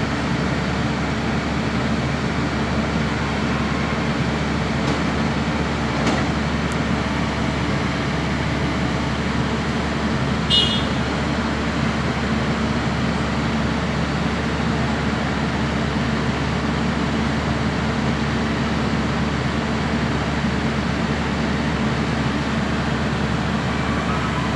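Heavy diesel engine running steadily at a constant speed, with a short high squeak about ten seconds in.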